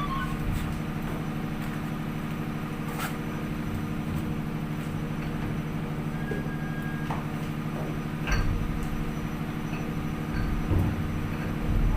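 Fishing vessel's engine running with a steady low hum, with a few short knocks heard over it.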